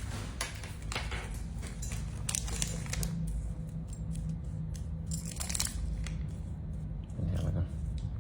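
Handling noises: scattered light clicks and rustles over a steady low hum.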